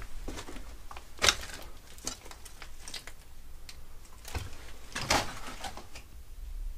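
Footsteps scuffing and crunching over loose concrete rubble and debris, with scattered knocks. Two louder strikes come about a second in and about five seconds in.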